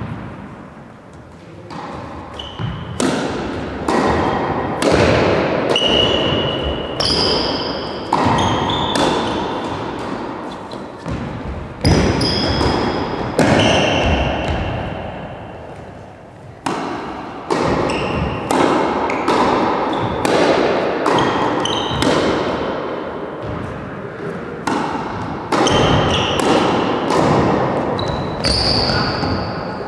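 Tennis rally in a large hall: rackets striking tennis balls and the balls bouncing on the hard floor, a sharp hit every second or two, each followed by a long echo. Some hits leave a short high ring.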